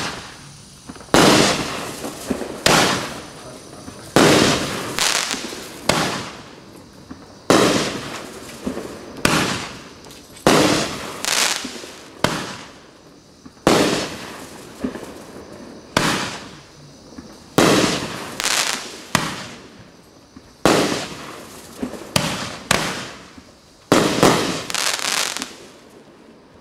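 Happy Family HF3700 200-gram consumer firework cake firing shot after shot, about one every second or so, some in quick pairs. Each shot is a sharp bang that fades over about a second as the shell bursts.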